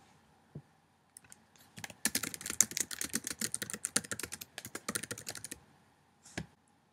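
Typing on a computer keyboard: a fast run of key clicks lasting about three and a half seconds, with a few single clicks before it and one more near the end.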